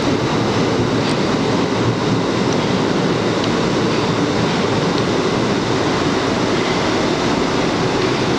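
Steady running noise of an R62A subway car travelling through the tunnel on the 7 line, heard from inside the car.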